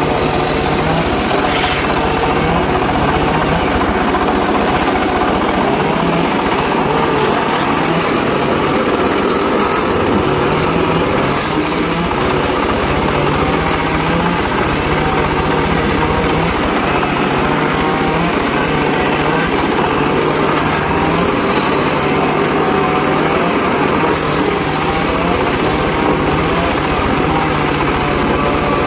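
Homemade circular saw running steadily, its blade cutting sengon laut (albizia) timber, with a continuous small-engine-like drone.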